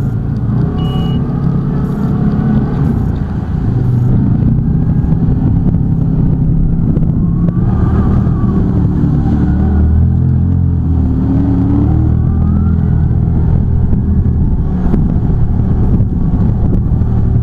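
Off-road vehicle's engine heard from inside the cab, pulling and speeding up along a rough track, its pitch rising and falling with the throttle. Muddy water sprays over the windscreen about eight seconds in as it drives through a pool.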